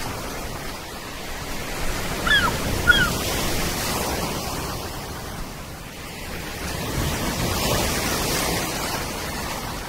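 Wind rushing over the microphone, swelling and easing, with two short falling bird calls a little over two seconds in and again about half a second later.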